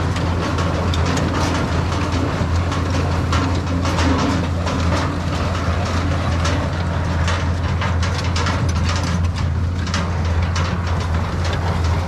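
Allis-Chalmers 200 tractor and New Idea square baler at work: a steady low engine drone under a constant clatter of knocks and rattles from the baler and the steel hay basket wagon it tows.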